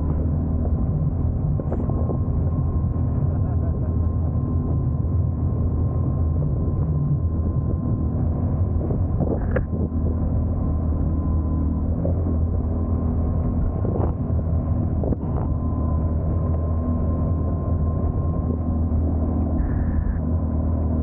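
Boat engine running at a steady cruising speed, an even low drone, with a few short knocks partway through.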